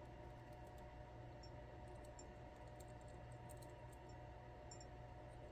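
Near silence with a steady low hum and faint, scattered small clicks from handling the small metal parts of a disassembled lock cylinder around its sidebar springs.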